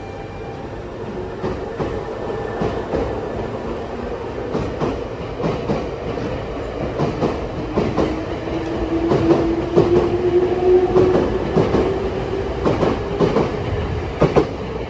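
Nankai electric train running on the rails, its wheels clacking over the rail joints, with a motor whine that grows louder and rises a little about eight seconds in.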